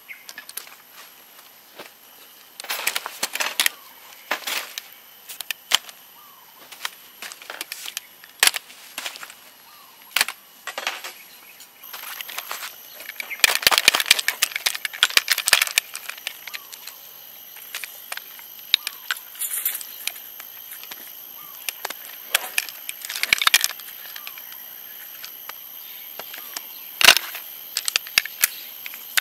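A folding camping cot being dismantled: clicks and clatter of its metal frame bars and leg joints coming apart, and rustling of its fabric bed. The busiest stretch of rustling and clatter comes about halfway through.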